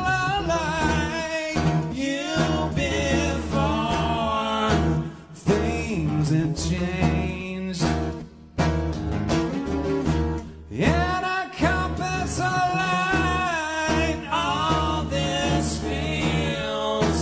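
Live acoustic rock song: two acoustic guitars strummed while a man sings the lead vocal.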